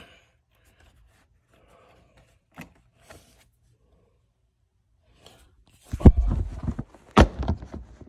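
Plastic seat belt pillar trim panel of a 2022 Honda Civic being pulled free of its clips: a couple of faint clicks, then two loud knocks with a short rattle about six and seven seconds in as the panel pops loose.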